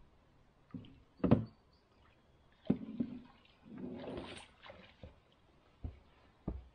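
Water and a canoe paddle against a canoe hull: a few separate knocks, the loudest about a second in, and a short splash near the middle.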